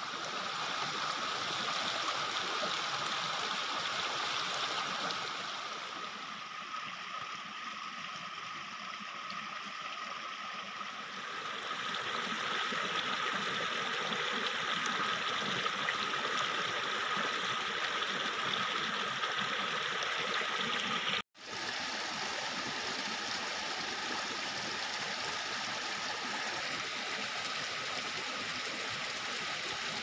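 Small stream rushing and splashing over rocks, a steady wash of water. It dips slightly in level for a few seconds and cuts out for an instant about two-thirds of the way through.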